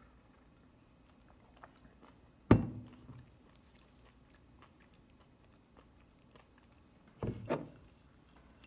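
A stainless steel tumbler set down on a desk with one loud knock about two and a half seconds in. Near the end comes a short cluster of knocks and rattles as a glass bowl of soy nuts is picked up, with faint crunching of chewing in the quiet stretches.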